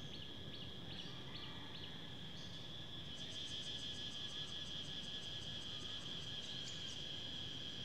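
Faint insect chirping: a steady high-pitched trill, joined about three seconds in by a rapid run of higher ticks.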